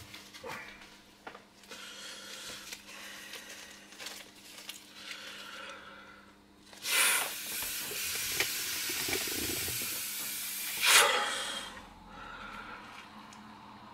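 Inflatable vinyl ring being blown up by mouth: a loud rush of breath into the valve for about four seconds midway, ending sharply. Before it come softer puffs of breath and small clicks of plastic being handled.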